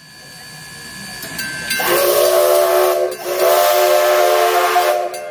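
Steam locomotive whistle sounding two blasts, the second longer than the first, with a brief break between, over a hiss of escaping steam.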